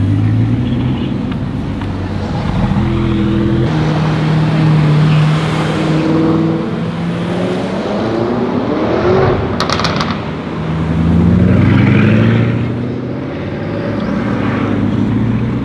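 Bugatti Chiron quad-turbocharged W16 engines pulling away at low speed, the engine note rising in pitch as the cars accelerate and easing off between pulls. About nine and a half seconds in there is a short, quick rattle of clicks.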